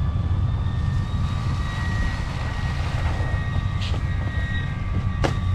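Steady low rumble of wind on the microphone, with faint high steady whining tones over it and a single sharp click about five seconds in.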